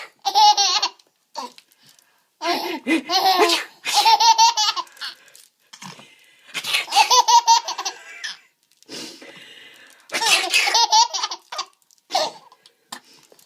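A seven-month-old baby laughing hard, high-pitched, in a series of bursts with short pauses between them.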